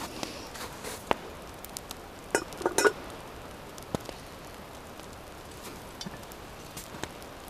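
Metal cookware clinking as a cast iron pot and its wire bail handle are handled: scattered single knocks, then a quick cluster of ringing clinks about two and a half seconds in.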